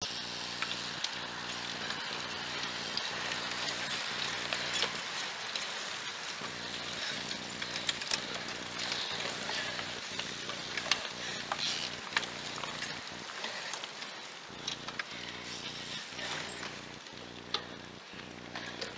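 Cyclo-cross bikes riding over grass: tyre and drivetrain noise with scattered sharp clicks over a steady outdoor hiss.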